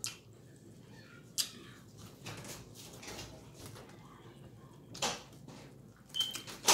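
Close-miked eating sounds: chewing and wet mouth noises of someone eating parmesan fries, with the paper wrapper crinkling as fingers pick out more fries. A few short sharp sounds stand out, the loudest about five seconds in and just before the end.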